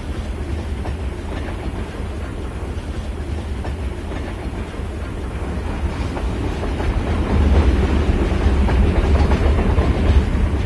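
Steady low rumble with dense rattling clatter, growing louder about seven seconds in.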